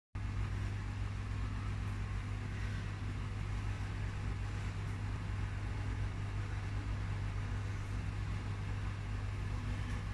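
A steady low hum that holds at one pitch throughout, over a faint even hiss.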